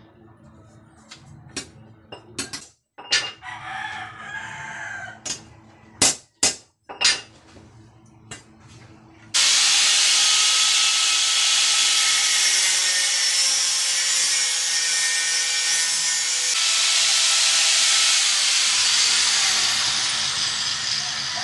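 Sharp knocks and clanks of steel parts and tools being handled. About nine seconds in, an electric angle grinder starts abruptly and runs on steadily, its disc grinding into steel with a loud, harsh noise.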